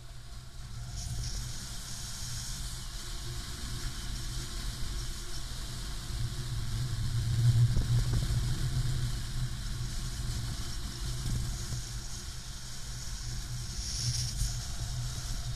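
Wind rushing over the camera microphone of a paraglider in flight: a steady low rumble with hiss, swelling louder about halfway through.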